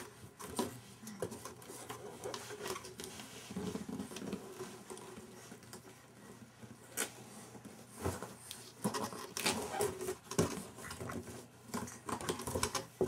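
A baby's hands patting and scratching on a cardboard diaper box, making irregular light taps and scrapes.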